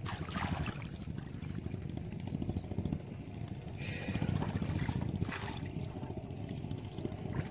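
Shallow water sloshing and trickling as hands work around a bamboo fish trap, with a few short splashes about four to five seconds in, over a steady low rumble.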